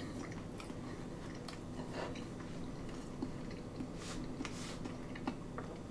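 Faint chewing of a mouthful of pulled pork sandwich on a soft roll, with a few small mouth clicks and a soft rustle about four seconds in.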